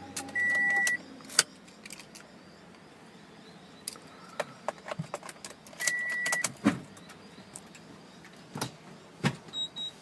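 Short electronic beeps in a car cabin, two of them about half a second long near the start and about six seconds in, among scattered clicks and knocks of handling. Near the end a higher, steady beep starts as the reverse camera system comes on.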